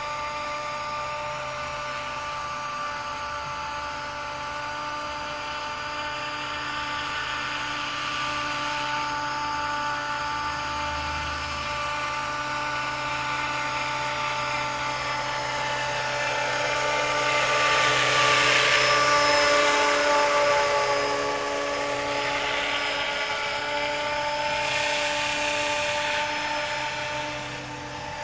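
500-size radio-controlled BO-105 scale helicopter with a four-blade main rotor in flight: a steady motor whine over rotor hiss, swelling to its loudest about two-thirds of the way through, then easing off.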